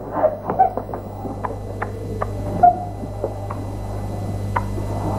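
Steady low electrical hum in an old soundtrack, with a few faint, scattered clicks.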